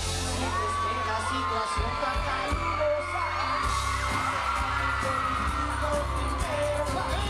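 Live reggaeton song played through a concert sound system: a heavy bass beat with a male singer's voice over it.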